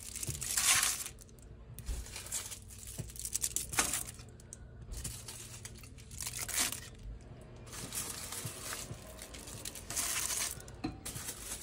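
Aluminium-foil-wrapped tamales being set into a stainless steel steamer pot: the foil crinkles in several separate bursts, with light clicks of the packets against the pot's metal rack and sides.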